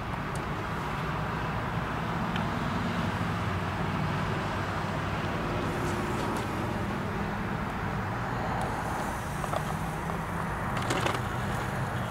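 Steady low hum and hiss, with a few faint clicks and scrapes of a spoon spreading a creamy topping over fish fillets in a foil tray.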